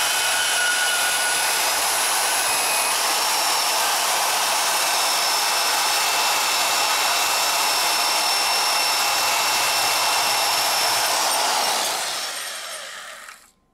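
Portable bandsaw cutting through thin-wall stainless tube: a steady rasp of the blade in the metal with a high whine over it. Near the end the cut finishes and the saw's sound dies away.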